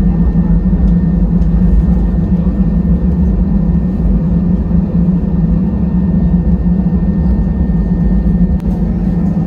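Steady cabin noise inside an Airbus A320 taxiing after landing: a constant engine drone over a low rumble.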